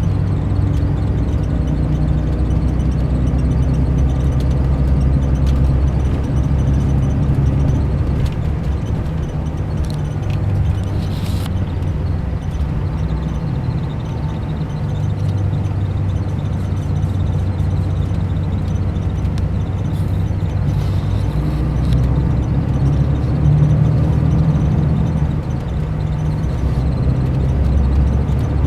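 Mercedes-Benz O500 RSD coach's rear-mounted diesel engine running steadily, a low, even drone.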